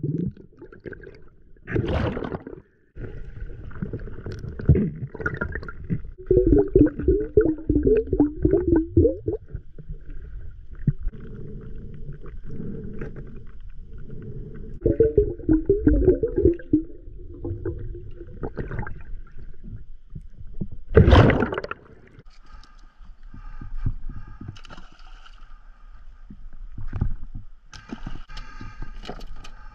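Muffled underwater sound of a freedive, heard through a camera housing: low water rumble with two spells of gurgling bubbles and scattered knocks. A loud burst comes about two-thirds through, after which the sound turns lighter and brighter, with water and air noise near the end.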